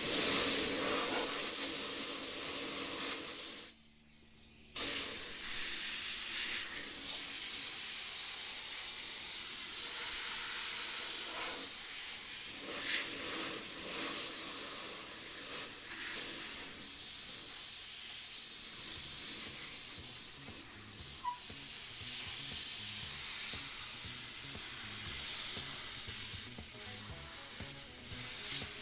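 Compressed air hissing steadily from an air-line nozzle as it blows trapped rainwater out from under a roof scupper's metal flashing. The air cuts off abruptly a few seconds in and comes back on about a second later.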